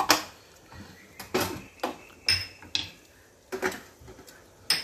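Metal kitchenware clinking and knocking: about half a dozen separate sharp strikes of utensils against pots and dishes, two of them ringing briefly with a high tone.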